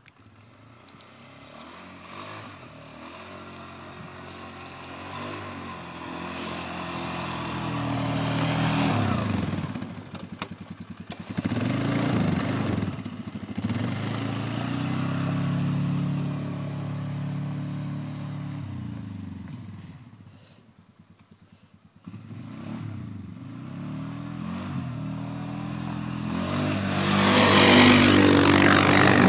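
Polaris 6x6 ATV engine pulling under load and easing off, three long pushes with its pitch climbing through each and short drops in between. The last and loudest push, near the end, comes with a harsh rushing scrape, typical of the snow plow shoving snow.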